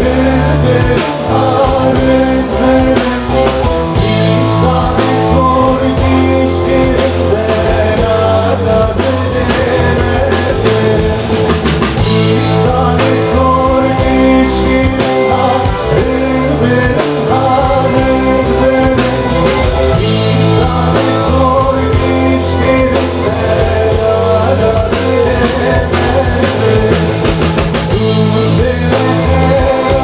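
Live band music: electric guitar, bağlama and drum kit playing a steady, loud rock-style song, with men singing into the microphones.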